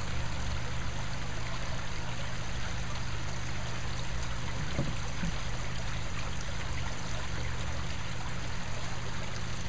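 Water from a small spout trickling and splashing steadily into a garden koi pond.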